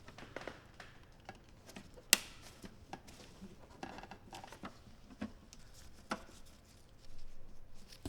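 Hands working on a plastic computer case, making scattered small clicks and knocks. There is one sharp click about two seconds in and a brief rustle near the end.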